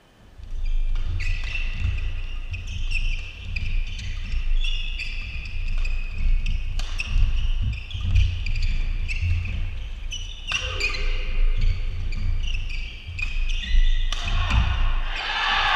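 Badminton doubles rally: rackets strike the shuttlecock again and again, court shoes squeak sharply on the floor, and heavy footfalls thud. Near the end, after a jump smash, a burst of clapping and cheering.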